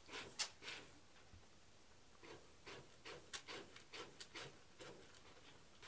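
Cat scratching and pawing in granular cat litter in a litter box: a string of faint, short, irregular scratchy rustles of shifting litter grains.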